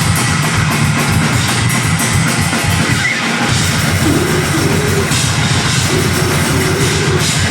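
Deathgrind band playing live and loud: a drum kit pounding under a dense wall of distorted heavy-metal instruments.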